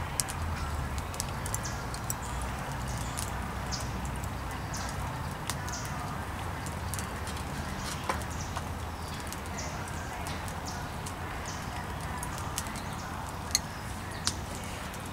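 Burning charcoal in a fire pit crackling, with a few sharp pops, one midway and two close together near the end, over birds chirping.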